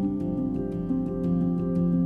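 Gentle instrumental background music: sustained chords with a light, steady ticking beat.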